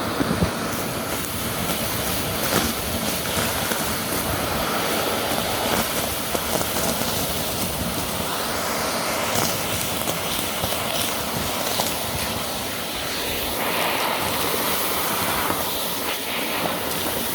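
Vacuum cleaner running steadily, a continuous motor and suction hiss with small swells in level.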